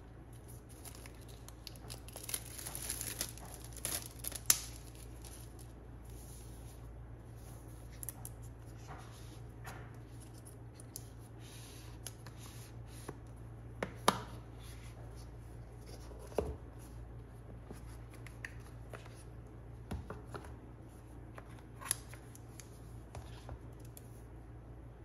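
Packaging being handled and opened: rustling and tearing of paper and plastic wrapping, a busier stretch of it in the first few seconds, then scattered single sharp clicks and taps. A steady low hum runs underneath.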